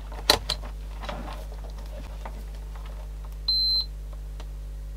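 A multimeter continuity beeper sounds one short, high, steady beep about three and a half seconds in, the sign that the test probes have found a connection. There is a light click just after the start, over a steady low hum.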